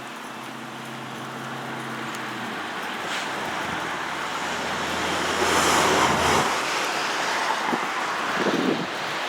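A vehicle passing by: a steady low engine hum, then a rushing noise that builds to a peak about six seconds in and eases off.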